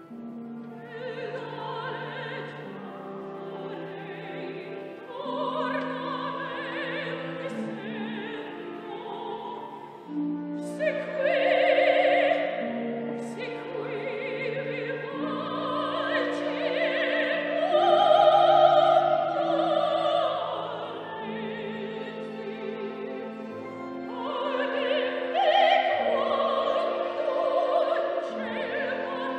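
Operatic singing in Italian with wide vibrato over orchestral accompaniment with sustained chords. The voice swells to its loudest twice, a little before and a little after the middle.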